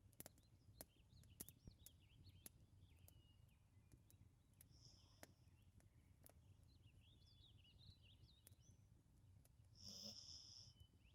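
A sleeping Labrador retriever breathing slowly and faintly, one soft snoring breath about halfway through and a louder one near the end. Scattered sharp crackles from a wood fire come in between.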